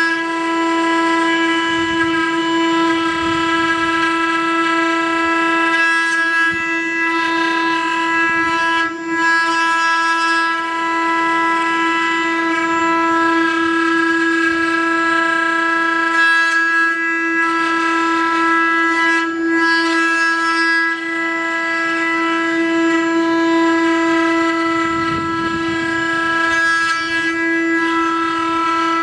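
Spindles of a multi-head 4-axis CNC wood router running at high speed while carving turned wooden balusters: a steady, high-pitched whine made of several tones, with cutting noise that swells and fades.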